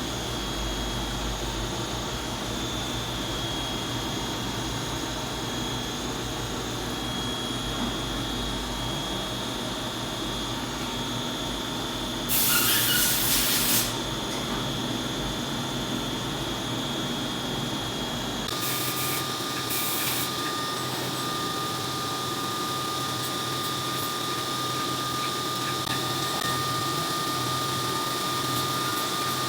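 CNC vertical milling machine running a soft-jaw machining job: a steady mechanical hum with faint high whines. About twelve seconds in comes a loud hiss lasting over a second. Around eighteen seconds in the sound changes and a steady high whine sets in.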